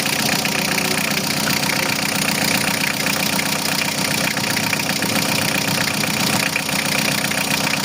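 Van engine idling steadily.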